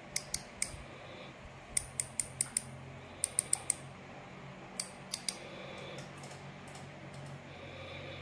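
Shimano Stradic 2500HG spinning reel's bail arm being worked by hand: sharp metallic clicks in quick runs of three to five, four runs in the first five and a half seconds, then a few fainter ticks.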